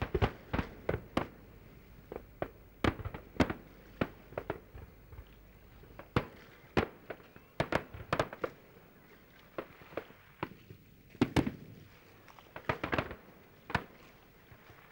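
Aerial fireworks shells going off: sharp bangs at irregular intervals, often several in quick succession, with a short lull about ten seconds in.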